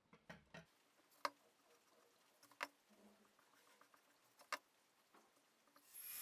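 Faint handling of a steel profile pipe and marker pen on a metal bench: a few sharp clicks and taps, three of them louder and spaced about a second and a half apart, in near silence. Near the end an angle grinder's cutting noise fades in and quickly grows loud.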